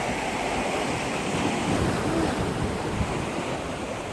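Sea waves washing against the shore, with wind buffeting the microphone: a steady rushing noise.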